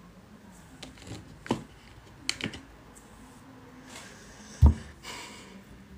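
Handling noise on a phone that is recording: a few light taps and clicks, then one louder thump a little past halfway through.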